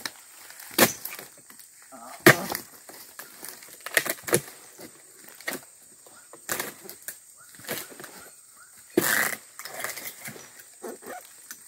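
Oil palm harvesting chisel (dodos) on a long pole jabbed up into the palm's frond and fruit-bunch stalks, cutting: a string of sharp, irregular chopping knocks about one a second, with a longer, rougher one about three-quarters of the way through.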